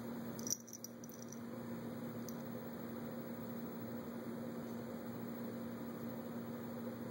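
A steady low hum over faint background hiss, with a brief click about half a second in.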